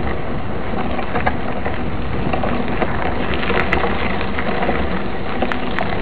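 Mountain bike rolling along a dirt road: a steady crackling rush of tyres on grit and loose gravel, with many small clicks and rattles from the bike.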